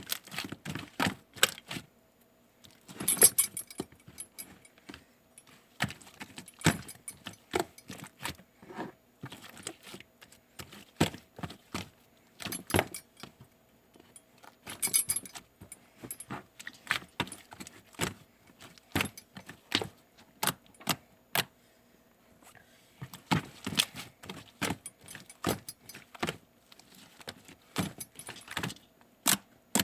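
Slime being pressed and squished by hand, making irregular clusters of sharp clicks and crackles with short pauses between them.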